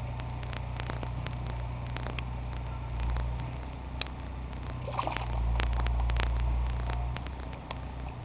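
Pond water sloshing, with small splashes and clicks as pond fish feed at the surface around a hand, over a steady low rumble that swells twice.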